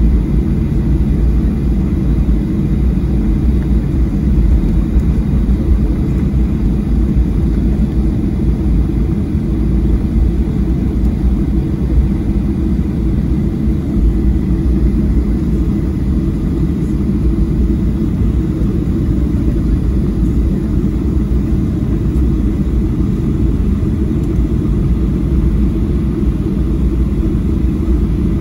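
Cabin noise of a Boeing 737-800 taxiing, heard over the wing: its CFM56-7B jet engines at low taxi power make a steady low rumble with a faint thin whine above it.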